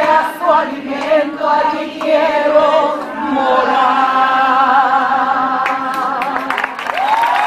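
Worship song with sung vocals over accompaniment, the voices wavering with vibrato and then settling into a long held closing note about three seconds in. A few claps start near the end.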